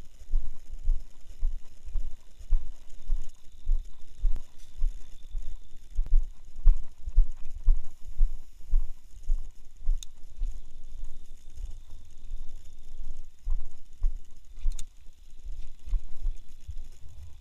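Low, dull thumps about twice a second from a hand-held camera being carried along on foot: footsteps and handling knocks on the microphone. Two short sharp clicks are heard, one about two-thirds of the way in and another a few seconds later.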